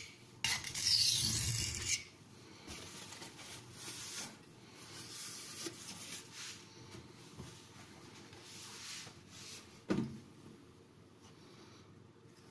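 Carbon-steel knife blade being stroked across an oiled Norton India oilstone: one long, loud scraping stroke in the first two seconds, then quieter scraping and rubbing, and a sharp click about ten seconds in.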